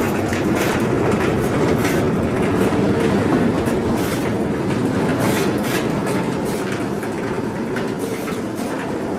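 Large industrial metal sliding door rolling along its track: a steady rumble of the rollers with scattered clicks and rattles, and a louder knock near the end.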